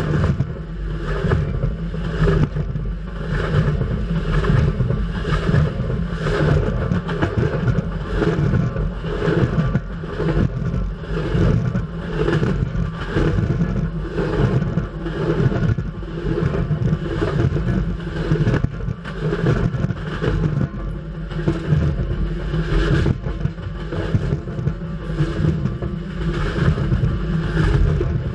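CN freight train cars rolling directly overhead, heard from between the rails: a loud, steady rumble of steel wheels on rail, broken by repeated clacks about once or twice a second.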